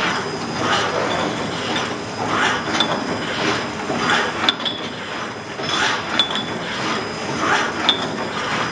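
Automatic bottle screen printing machine running through its cycle, a mechanical swish repeating about every second and a half. Frosted glass bottles clink against each other or the line with short, light rings every couple of seconds.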